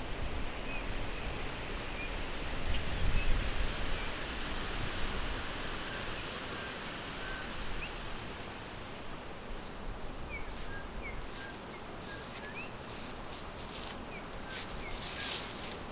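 Forest ambience: a steady rushing background with faint, scattered short bird chirps. A brief low rumble comes about three seconds in, and bursts of rustling come in the second half.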